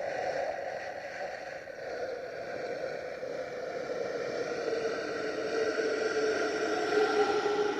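Creepy ghostly breath sound effect: one long, drawn-out airy exhale with a hollow tone inside it that slowly drifts in pitch.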